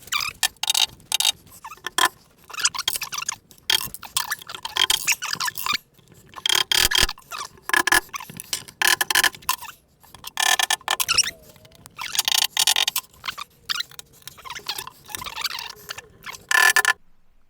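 Shelf-support pins being tapped into the holes in a kitchen wall cabinet's side: repeated clusters of quick, sharp metallic clicks, each lasting about a second, with short pauses between them.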